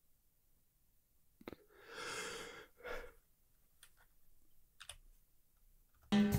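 A man's long breathy sigh close to the microphone, followed by a shorter breath, with a few faint clicks before and after. Guitar music cuts in suddenly near the end.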